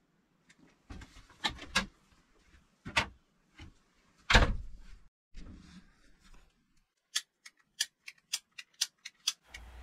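A few knocks and thumps, the loudest about four and a half seconds in. Then, from about seven seconds in, a quick run of sharp clicks, about three a second: the trigger of a refilled long-nose butane utility lighter being clicked, failing to light.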